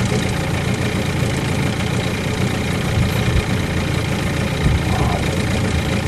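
Small boat's motor running steadily at low speed, a constant low engine drone.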